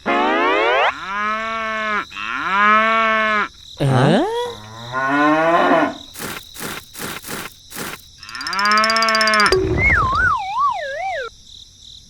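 Several long, drawn-out animal calls, then a run of sharp clicks, then a wavering up-and-down tone near the end.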